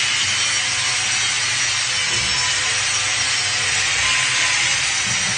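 A steady, even rasping noise of a tool cutting or abrading material, with no break or change in rhythm.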